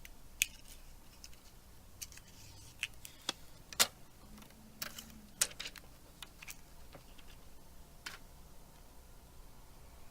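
Light, irregular clicks and taps of small smartphone parts and hand tools being handled on a work surface, about a dozen in all, the sharpest about four and five and a half seconds in.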